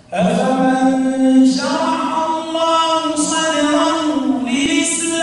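An imam reciting the Qur'an aloud in a slow, melodic chant while leading congregational prayer. He holds one male voice on long notes that bend slowly, into a microphone.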